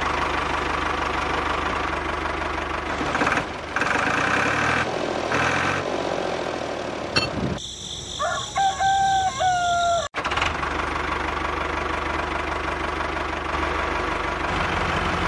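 Tractor engine idling steadily. A rooster crows once about eight seconds in.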